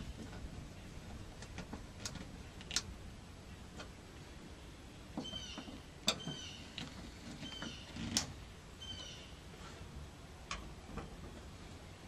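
Screwdriver and plastic third brake light housing clicking and knocking as the new light is fastened to the cab roof, with several short high squeaks in the middle.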